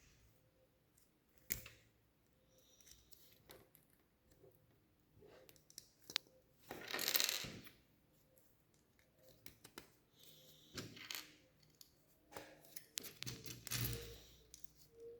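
Small plastic Lego pieces clicking and clattering as they are handled and fitted together, with a longer rustling clatter of pieces about seven seconds in.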